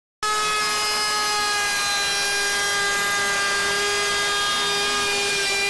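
Ryobi 18V ONE+ cordless trim router, about 29,000 RPM, with a 3/8-inch roundover bit cutting along a board's edge: a steady high whine over a cutting hiss. The pitch sags slightly as the bit bites into the wood and rises again near the end as the load comes off.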